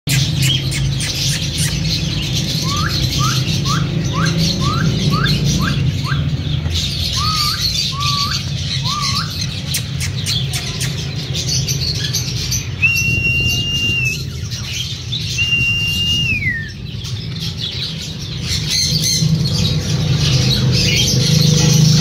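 Caged birds calling: a run of about a dozen quick rising whistled notes, then two long level whistles, the second sliding down at its end. A steady low hum runs underneath.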